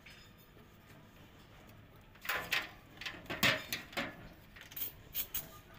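Quiet for about two seconds, then a string of irregular knocks and rattles as a hand drum pump and its hose are handled against steel oil drums.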